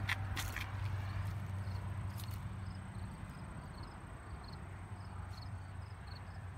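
Chrysler 392 Hemi V8 idling steadily, a low even rumble. There are two sharp clicks at the start and faint high chirps throughout.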